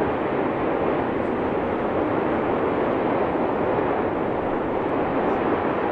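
Eruption of the new vent on La Palma's Cumbre Vieja ridge, jetting lava fountains: a continuous, dense, even noise with no separate blasts.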